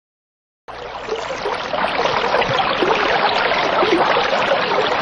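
Running water: a steady splashing rush that starts abruptly after a brief silence, less than a second in.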